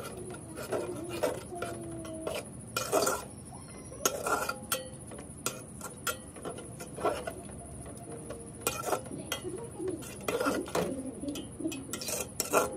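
Metal spoon stirring eggs in a thick curd gravy in an aluminium pot, scraping and clinking irregularly against the pot's sides and bottom.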